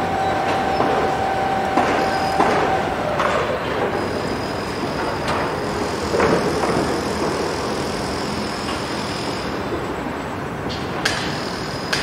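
Construction site din: steady machinery noise with a long high whine and scattered knocks. Sharp hammer blows start near the end.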